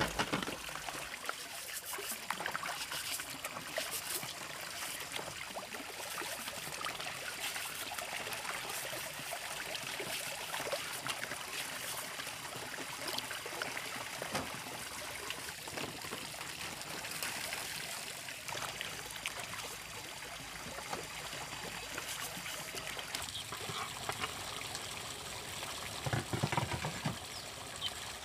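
Water trickling and splashing steadily, with small irregular splashes and clicks, a little louder near the end.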